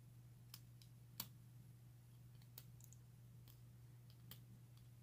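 Faint, scattered metallic clicks of a lock pick and tension wrench working the pins in the keyway of a brass padlock, the sharpest about a second in, over a low steady hum.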